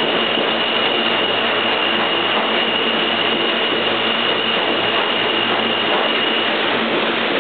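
New York City Subway R160 train pulling out of the station alongside the platform: a loud, steady rush and rumble of the cars running on the rails. A thin, steady high whine sounds over it and stops about a second before the end.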